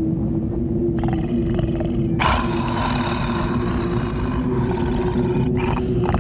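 Horror sound effect: a low, droning rumble with a steady hum, over which a harsh, drawn-out roar starts about a second in, grows loud about two seconds in and breaks off briefly near the end.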